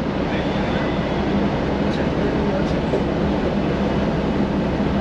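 Steady low rumble of a moving vehicle, with faint voices in the background.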